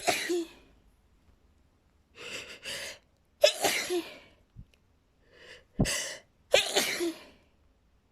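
A woman sneezing over and over: one sneeze right at the start, then three more from about three and a half seconds on, the last two close together. Breathy intakes fall between them.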